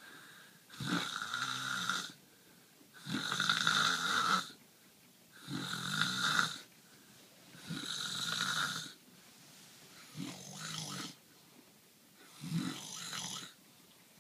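A man snoring in his sleep: six snores, each about a second long, roughly one every two seconds, with quiet breaths between.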